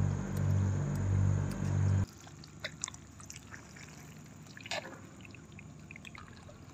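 A low pulsing drone that cuts off abruptly about two seconds in, then faint dripping and trickling water with a few small splashes in the shallow water of the trap.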